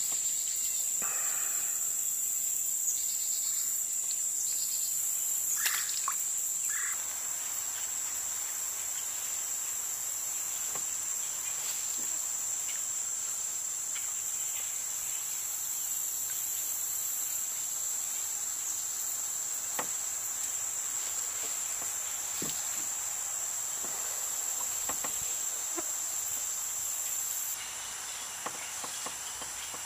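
Cicadas singing in the summer trees: a steady high-pitched drone, with a few faint clicks.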